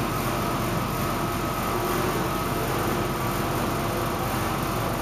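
Steady, even hiss of room noise with a faint hum, unchanging throughout.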